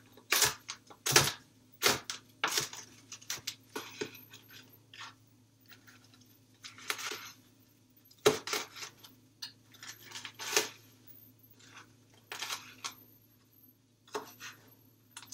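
Kitchen knife chopping cooked bacon on a plastic cutting board: sharp, irregular knocks, several in quick succession in the first few seconds, then scattered strikes with pauses between.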